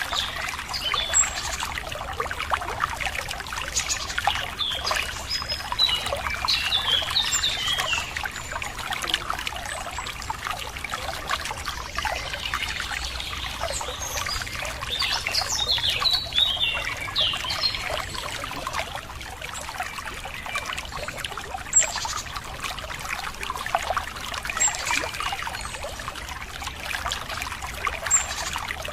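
Running water trickling and splashing steadily, with birds chirping in short bursts of calls every several seconds.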